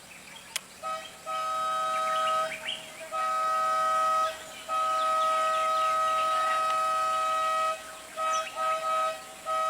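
Vehicle horn sounding two notes at once in long blasts, the longest about three seconds, followed by a run of short toots near the end.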